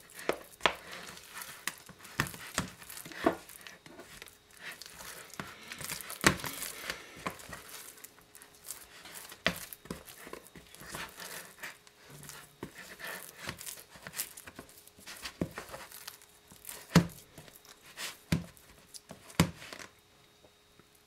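Wet, sticky bread dough being squeezed and mixed by hand in a plastic bowl: irregular squelching and tearing of the dough, with sharp knocks of hand and wooden spoon against the bowl. The handling stops shortly before the end.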